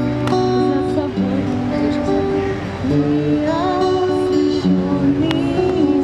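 Acoustic guitar played live, with a woman's voice singing along in a few sliding phrases over it.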